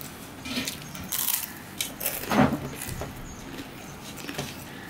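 Dry crackling and crunching of puffed rice: a puffed-rice ball being broken apart, grains picked off a steel plate and chewed. One louder sound comes about halfway through.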